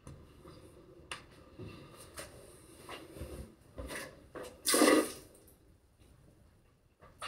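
Mouthwash being swished around the mouth, with a few faint wet clicks, then spat into a bathroom sink in one short splattering burst about five seconds in, the loudest sound.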